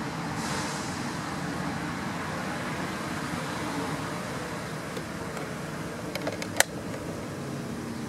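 Steady outdoor background noise, with a few sharp clicks about six seconds in, the last one loudest.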